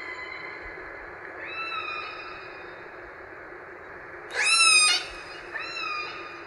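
Orca (killer whale) calls over a steady hiss: three pitched, rising-then-levelling calls, a faint one about one and a half seconds in and two louder ones near the end, the first of those the loudest.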